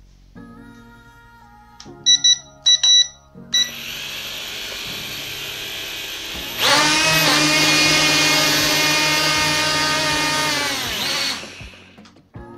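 A few short electronic beeps, then the Eachine E58 mini drone's motors and propellers start whirring and about three seconds later rev up to a loud, high whine for some four seconds before winding down with falling pitch. The drone fails to lift off because two of its propellers are installed the wrong way.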